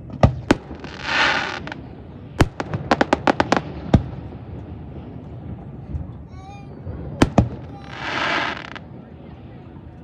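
Aerial fireworks going off: sharp bangs of shells bursting, a quick string of about eight cracks in a row a few seconds in, and two hissing bursts about a second long.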